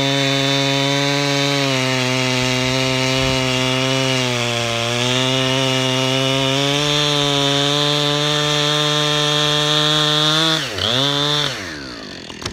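Husqvarna 455 Rancher 55 cc two-stroke chainsaw with a 24-inch bar and skip-tooth chain, at full throttle cutting through a two-foot log; its pitch sags under the load about four seconds in. Near the end it finishes the cut: the revs drop sharply, rise briefly once, then fall away to idle.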